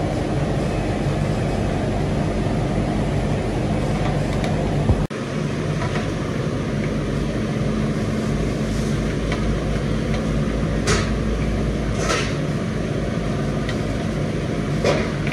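A steady, low, rumbling drone of kitchen machinery with a faint hum. It drops out for an instant about five seconds in. A few short clicks come later on.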